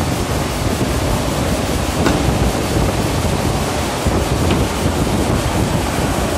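Paper tube making machine running: a steady, loud mechanical noise, with a faint click about two seconds in.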